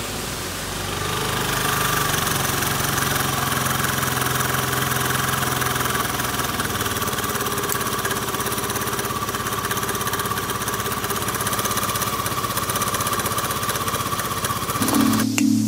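Romeo 125 scooter's single-cylinder engine running steadily with an abnormal noise, suspected to come from a damaged starter clutch, a damaged crankshaft, or both. It cuts off suddenly near the end.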